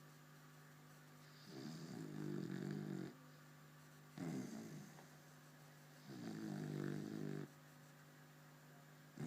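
Sleeper snoring in a steady rhythm: four rough snores about two seconds apart, the longer drawn-out ones alternating with shorter ones that start sharply and fade.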